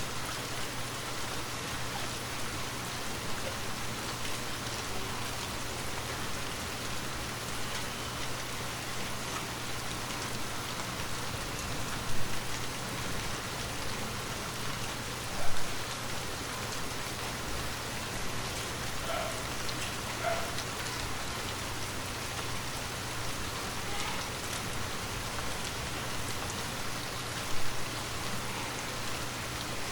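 Steady rain falling on a surface, with three brief, louder taps standing out from it.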